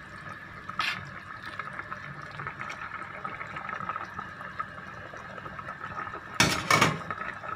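Chicken macaroni soup simmering in a rice cooker pot, a steady bubbling as a ladle stirs it. Two loud knocks sound close together near the end.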